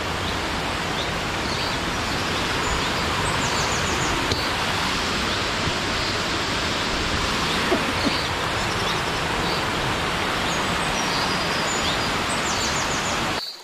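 Steady rush of a rocky mountain stream tumbling over small cascades, with short high bird chirps now and then. The sound drops out briefly near the end.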